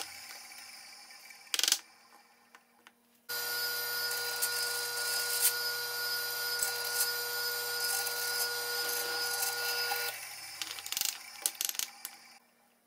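Drill press boring a 3/8-inch hole through a cherry block: a steady motor hum with the cutting noise of the bit, starting abruptly about three seconds in and stopping about ten seconds in. A sharp knock comes about a second and a half in, and a few light knocks near the end as the wood block is handled.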